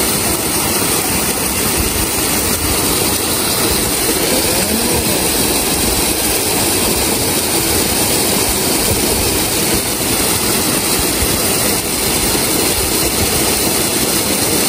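Steady, even rushing of water from a waterfall, a loud constant noise with no breaks.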